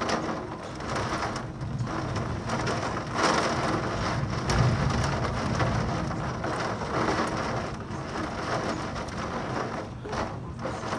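Heavy thunderstorm rain pouring down steadily, with a rumble of thunder swelling about halfway through.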